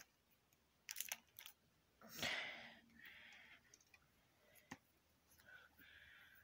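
Quiet handling of wrappers and plastic: a few light clicks about a second in, a brief crinkling rustle a little after two seconds, then faint rustles and a single sharp click near five seconds.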